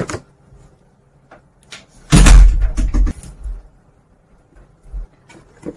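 A room door being pushed shut, with a loud thud about two seconds in, then a few lighter knocks.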